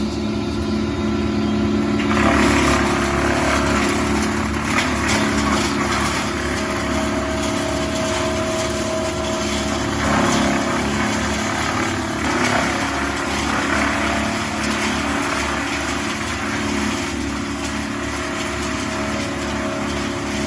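An engine on tree-removal equipment running steadily, with rougher, noisier surges starting about two seconds in.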